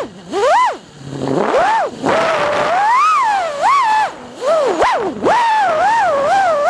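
Electric motors of a small radio-controlled aircraft carrying the camera: a loud whine that swoops up and down in pitch every second or so as the throttle is worked, dipping briefly a few times.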